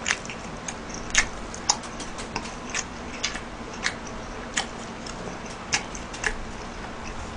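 A person eating with chopsticks close to the microphone: scattered sharp clicks and smacks, roughly two a second at an irregular pace, over a faint steady hum.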